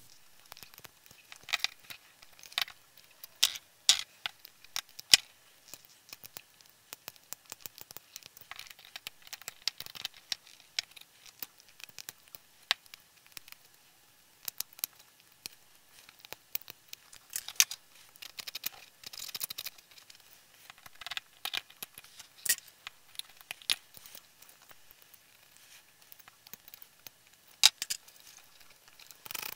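Hobby knife cutting and scraping a PLA 3D print to clean off leftover support material: irregular small clicks, snips and scratches of the blade on plastic, a few sharper ones now and then.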